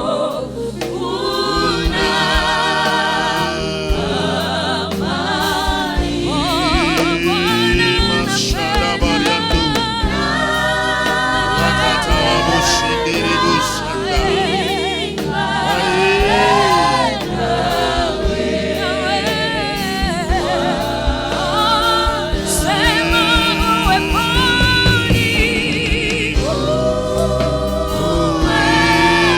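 Gospel worship music: a choir singing with vibrato over steady instrumental backing.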